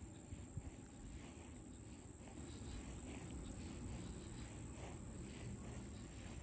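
Faint, steady high-pitched insect chirring, over a low rumble.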